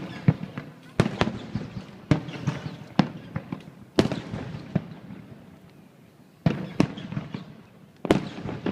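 Aerial firework shells bursting in a display: a string of sharp bangs, about one a second, each trailing off in a rumbling echo, with a short lull a little past the middle.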